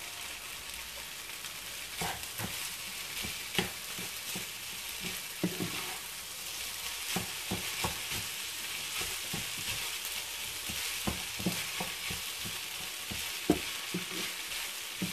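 Rice sizzling as it is stir-fried in a nonstick frying pan, turned and scraped with a wooden spatula. There are scattered knocks of the spatula against the pan, the loudest about three and a half seconds in and near the end.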